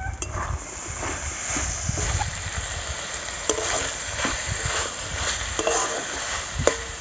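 Metal spatula stirring and scraping minced chicken and lotus seeds in a metal kadai, with short scrapes against the pan over a steady sizzle as the mix fries down.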